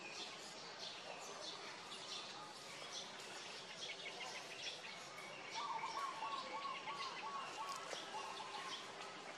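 Birds chirping and calling over a steady outdoor background. From about five and a half seconds in to about eight seconds, a run of quick repeated lower notes is the loudest sound.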